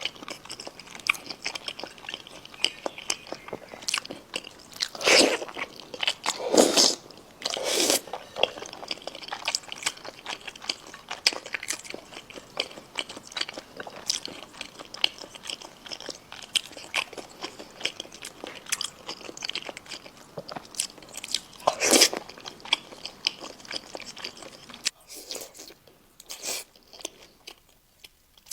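Close-miked mouth sounds of eating chicken: steady chewing with many small wet, crunchy clicks, and a few louder bites or crunches spread through, the loudest near 22 s. The chewing grows quieter near the end.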